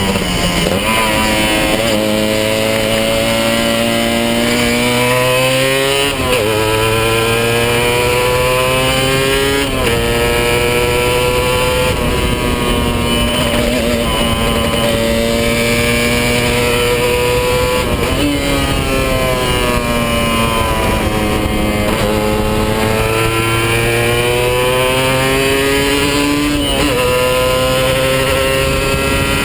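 Kawasaki 150 RR's stock two-stroke single-cylinder engine under way, still in its run-in period. Its pitch climbs under throttle for several seconds and then drops back sharply, about five times over, with a steady hiss of wind.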